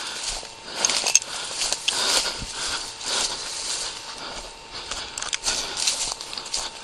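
Footsteps crunching through dry grass and brush, with stems and leaves rustling against the walker, in uneven bursts about once or twice a second.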